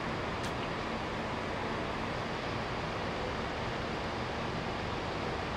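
Steady hum and hiss inside a passenger train carriage standing at a platform with its doors open: the train's idling engine and ventilation. A brief faint high squeak about half a second in.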